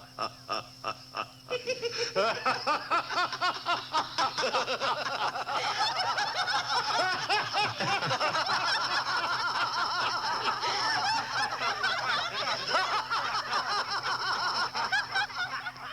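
Giggling sound effect: a quick run of rhythmic laughs, then many overlapping high-pitched giggles from a crowd of voices, cut off abruptly near the end.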